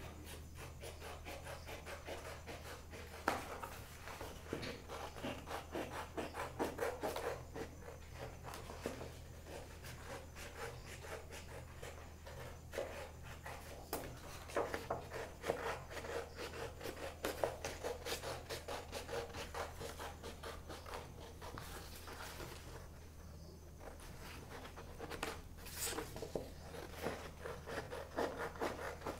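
Scissors snipping through a sheet of paper in a long run of short cuts, with the paper rustling as it is turned to follow the outline of a stencil. A steady low hum runs underneath.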